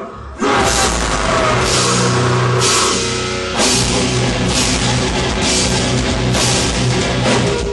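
Heavy metal music with distorted guitar and a drum kit with crashing cymbals, kicking in about half a second in after a brief lull.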